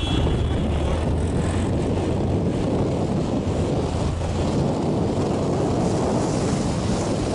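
Wind rushing over the microphone of a moving vehicle, with a steady low engine drone beneath it.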